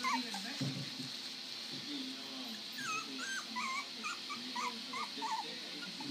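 Young puppies whimpering and yipping as they play-bite each other: a run of short, high squeaky whines in quick succession.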